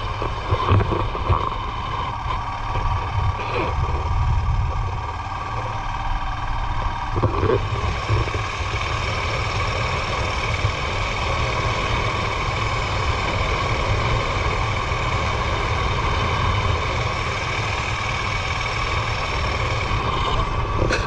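A vehicle engine running steadily, with a low rumble and a steady whine.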